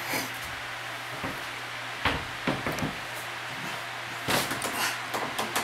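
A climber's shoes and hands knocking and scuffing against a plywood bouldering wall and its bolt-on holds: a handful of thumps and scrapes, the heaviest about two seconds in, over a steady low hum.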